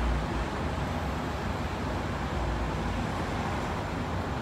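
Steady low rumble with an even hiss of background noise, with no distinct events.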